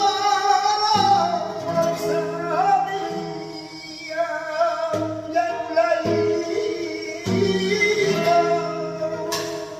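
Flamenco cante por seguiriya: a voice sings long, ornamented lines that bend and waver in pitch over a guitar, whose chords are struck a handful of times.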